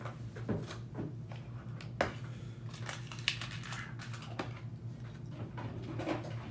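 Room tone in a small room: a low steady hum with scattered small clicks and rustles, the sharpest click about two seconds in.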